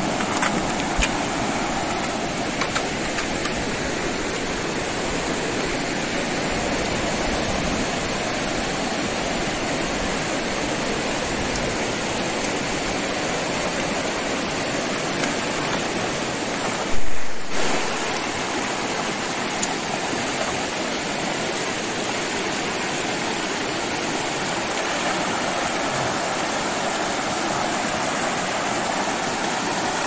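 Steady rush of a fast, muddy river running over rocks in rapids. A single brief, loud thump about halfway through.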